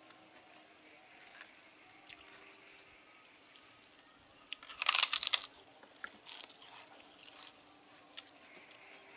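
Fried papad bitten and chewed: a loud burst of crunching about five seconds in, followed by a few smaller crunches.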